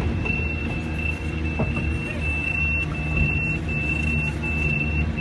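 Crawler crane's diesel engine running steadily, heard from inside the operator's cab, with a high thin tone over it that breaks off briefly about every two-thirds of a second.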